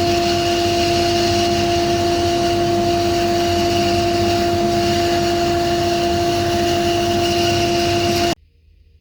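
Charnwood Cobra C14BX 14-inch bandsaw with its 1800 W induction motor running, giving a steady whine with a higher overtone over a hiss of blade and wheel noise. The sound cuts off suddenly near the end.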